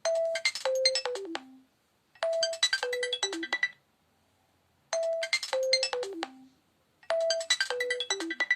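A preloaded ringtone on a Nokia Lumia 521 Windows Phone. It plays a short melody that steps downward under bright, chiming high notes, repeating four times with short gaps between.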